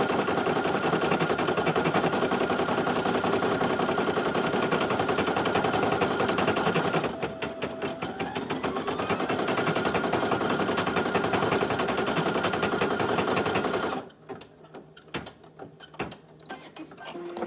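Brother PE800 single-needle embroidery machine stitching a design at a fast, steady rate. It eases off briefly about seven seconds in, then runs on and stops abruptly about fourteen seconds in, followed by a few light clicks.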